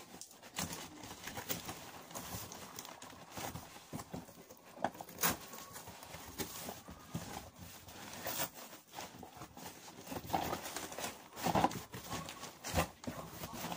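Cardboard shipping box being torn open and handled: irregular rustling, scraping and knocking of cardboard flaps against the boxed game inside.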